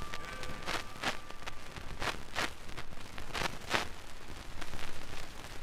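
Surface noise of a 45 rpm vinyl record with no music playing: a soft hiss broken by irregular clicks and pops.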